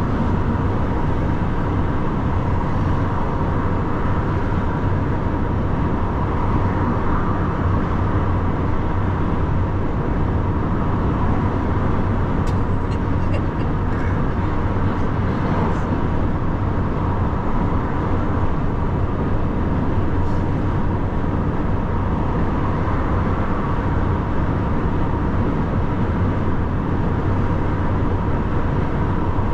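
Lorry driving at motorway speed: a steady drone of engine, tyres and wind with a constant low hum, unchanging throughout.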